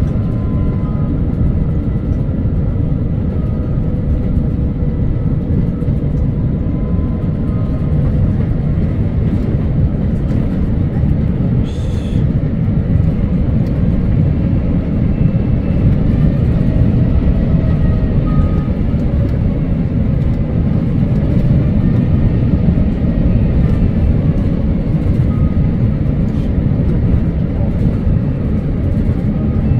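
Steady low rumble of a Cathay Pacific Airbus A350 airliner, heard from inside the cabin, with faint steady engine tones over it. A brief click about twelve seconds in.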